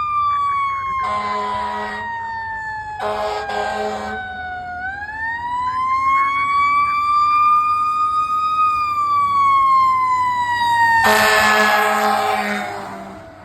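Fire engine siren wailing slowly: the tone falls, climbs back up and falls again. Three blasts of the truck's air horn cut over it, the last one longest, and the sound fades near the end as the truck moves off.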